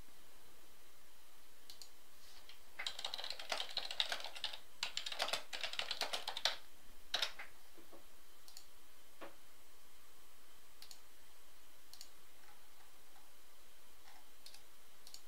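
Typing on a computer keyboard: a quick run of key clicks for about four seconds, then a few scattered single keystrokes.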